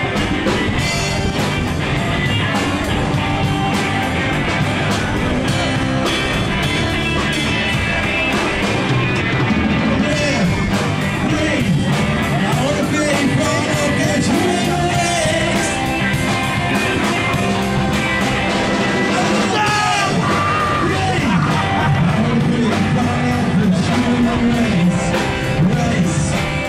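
Amplified rock band playing live: electric guitars and drums with a singing voice, and yells from the crowd.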